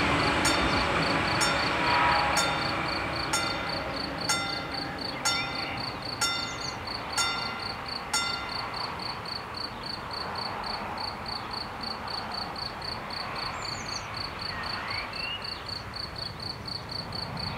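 Level-crossing bell striking about once a second and stopping about eight seconds in, as the crossing switches off after the train. The rumble of the passing diesel railcar fades away at the start. A cricket chirps steadily throughout, with a few brief bird calls.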